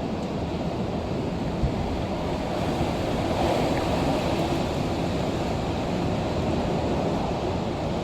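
Strong storm wind blowing steadily and buffeting the microphone, swelling a little about three seconds in.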